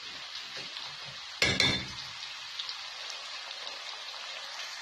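Veal chunks and carrots sizzling in a pan over high heat, a steady hiss, with one short louder clatter about a second and a half in.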